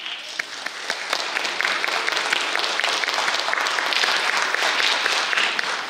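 Audience applauding: many people clapping at once, starting suddenly and tailing off near the end.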